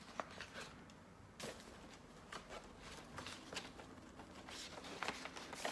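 Faint, scattered rustling and ticking of paper being handled: sheets of stickers and pamphlets picked up and shuffled by hand.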